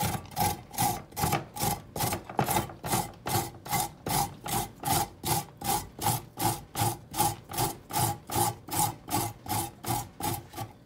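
Raw carrot being grated by hand on a flat Microplane grater, in a steady run of even strokes, about two or three a second.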